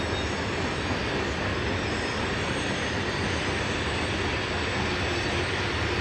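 Freight train cars rolling past on the rails: steady, continuous wheel-on-rail noise from a passing manifest freight.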